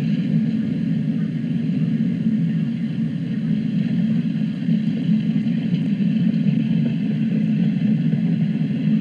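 Freight train rolling past with a steady low rumble, a few faint ticks in the middle.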